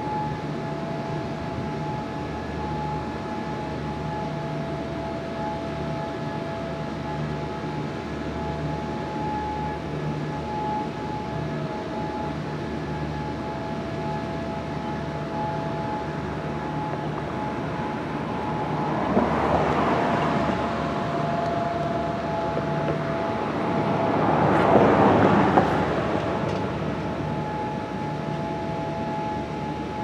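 Outdoor warning sirens holding two steady tones over a rushing background. Two swells of rushing noise rise and fall about nineteen and twenty-five seconds in.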